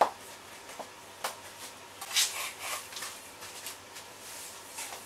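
A person turning on the spot: a few light clicks and soft scuffing and rustling of shoes and clothing. The loudest rustle comes about two seconds in.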